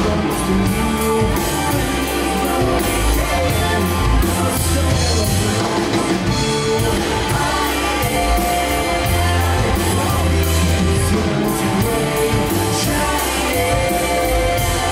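Live blues-rock band playing: electric guitar, electric bass, drum kit and keyboard, with a man singing lead into a microphone. The drums keep a steady beat under held guitar and vocal notes.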